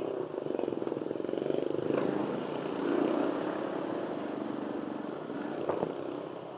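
Vehicle engine running, growing louder over the first few seconds and then easing off, with a short knock near the end.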